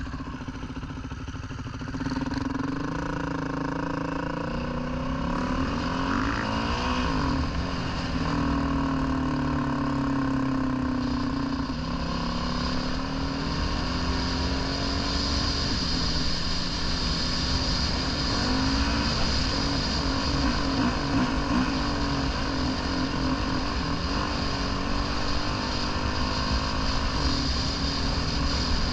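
Dirt bike engine running while riding, its pitch rising and falling again and again with throttle and gear changes, over a steady low rumble. It gets louder about two seconds in.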